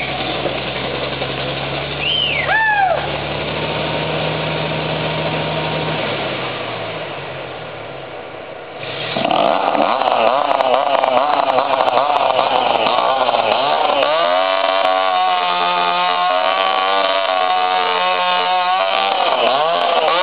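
A low, steady engine drone fades out over the first eight seconds or so. About nine seconds in, a chainsaw comes in loud and runs with its engine pitch dipping and rising again and again as the throttle is worked.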